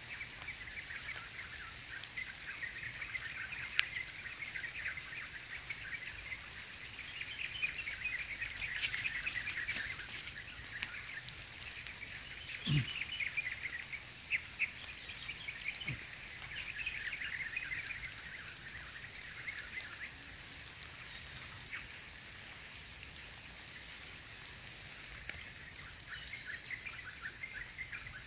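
A high, rapid chirping chorus that swells and fades in waves, with scattered light clicks and one dull thump about thirteen seconds in.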